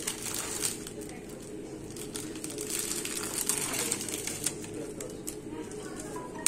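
Crinkling and rustling of a urinary catheter's plastic wrapper as it is peeled open and the catheter drawn out, with the busiest crackling about two to four and a half seconds in.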